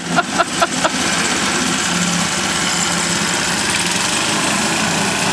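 Small gasoline engine of a powered reel lawn mower running steadily, with a quick run of about five short sharp sounds in the first second.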